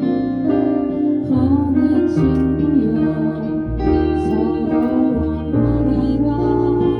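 Live band music: an instrumental passage between sung verses, with chords changing about once a second.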